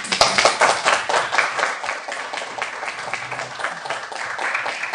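Small audience applauding: many hands clapping together, starting suddenly and loudest at first, then settling a little.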